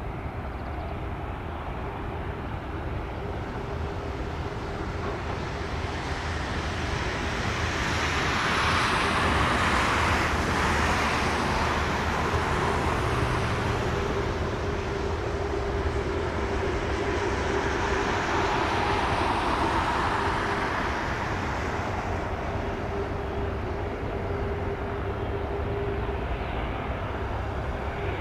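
Boeing KC-135R's four CFM F108 turbofan engines running at taxi power: a steady jet rumble and hiss with a constant held tone, swelling louder twice as the tanker taxis past.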